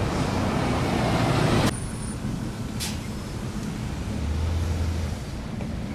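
Road traffic noise: a loud, rising rush of vehicle noise cuts off abruptly about a second and a half in, leaving a lower steady rumble with a brief low hum near the end.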